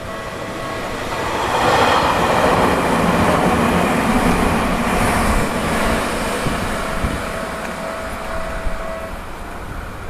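Tokyu Tamagawa Line electric commuter train passing close by, its noise swelling about a second in, loudest for several seconds, then easing off. The level crossing's warning bell rings steadily underneath and stops near the end.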